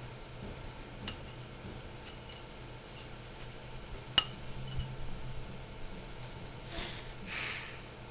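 Metal fork clinking against a ceramic bowl as a toddler picks up avocado cubes: a few light taps and one sharp clink about four seconds in. Near the end, two short breathy puffs as she blows on the bite.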